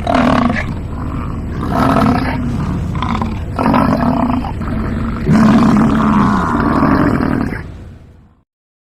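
American bison bellowing: a series of about five deep, drawn-out roars, the longest near the end, then fading out.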